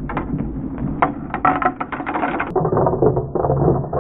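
Plastic LEGO bricks clattering down onto hard boards: a dense, irregular rattle of clicks and knocks, played back slowed down. About two and a half seconds in the sound turns duller.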